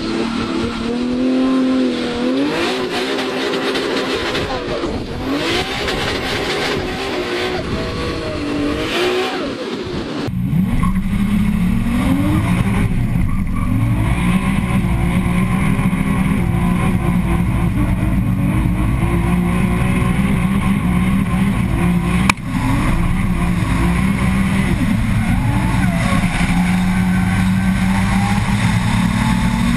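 Turbocharged S54 straight-six of a 1250 hp BMW E30 revving hard through a drift, its pitch rising and falling with the throttle. About ten seconds in the sound cuts to a steadier, deeper engine note held at high revs over a heavy low rumble, heard from outside the car during a long, smoky slide.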